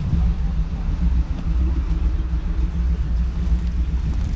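A car engine idling with a deep, steady, fluttering rumble.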